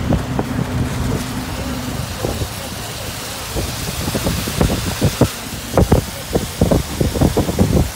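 Car driving on a wet road in rain, heard from inside: a steady rush of tyre and road noise, with a low hum early on. From about halfway in, irregular taps grow frequent, like raindrops striking the car.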